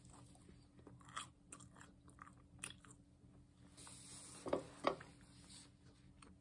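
A person biting into and chewing toast spread with peanut butter close to the microphone: soft scattered crunches and mouth sounds, with two louder short sounds about two-thirds of the way through.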